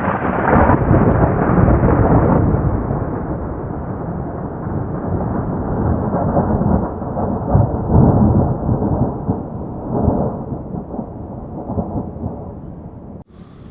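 Thunder rumbling in long rolling peals, swelling twice, then cutting off suddenly near the end.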